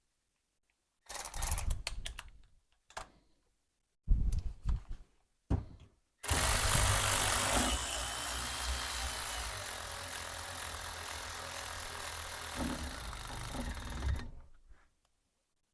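A few short knocks of parts and tools being handled, then about eight seconds of steady mechanical running that stops abruptly: a power driver running the vise's movable-jaw set screw in until it touches.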